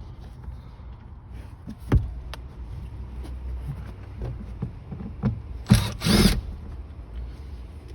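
Cordless power screwdriver backing out a car sun visor's mounting screws, its motor whining in two short bursts about six seconds in, with small clicks and a knock from handling the trim.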